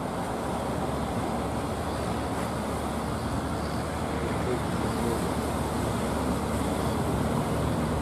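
Steady rumbling roar of fishing boat engines mixed with breaking surf and wind, growing a little louder in the second half.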